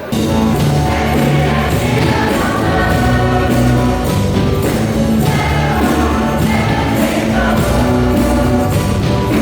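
A group of voices singing together over band accompaniment with a steady beat.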